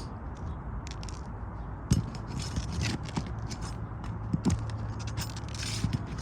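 Scraping and crackling clicks of a roofing tool working under asphalt shingle tabs to loosen them, with a few sharp knocks. A low steady hum runs through the second half.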